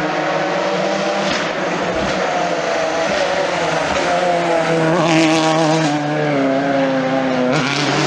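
Ford Fiesta rally car's engine at racing revs. Its note sinks slowly as the car slows for a hairpin, with a short hiss about five seconds in, then jumps back up near the end as the car accelerates out.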